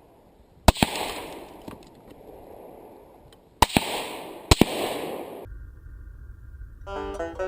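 5.56 rifle shots: five sharp cracks in close pairs, each trailing off in a rolling echo. Music starts near the end.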